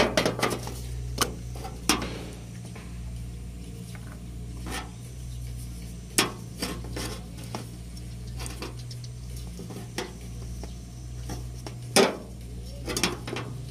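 Scattered light clicks and clinks of metal being handled, with a louder cluster near the end, over a steady low hum.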